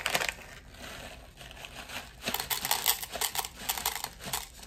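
A plastic bag of hard wax beads crinkling as more beads are shaken out of it, with a dense patter of small clicks and crackles from about two seconds in.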